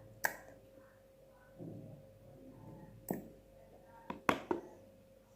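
A few light, sharp taps and clicks of small objects being handled, about five in all, the loudest a close pair about four seconds in.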